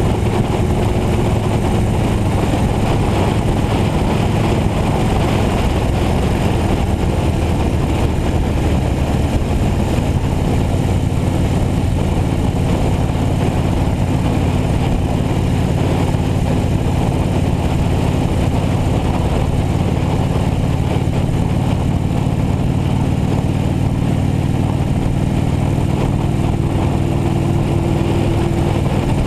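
Motorcycle engine running at a steady cruising pace, with wind and road noise rushing over a camera mounted on the bike. The engine note shifts a little about a third of the way in.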